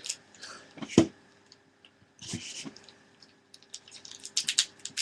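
Handling sounds of small plastic parts from the mouse's packaging: a sharp click about a second in, a short rustle, then a run of quick small clicks near the end.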